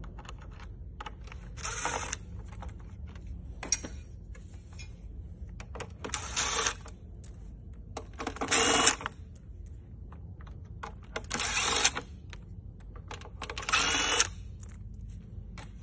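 Cordless drill-driver running in six short bursts, each about half a second to a second long, backing screws out of the metal casing of a factory car head unit. Light clicks and handling noise come between the bursts.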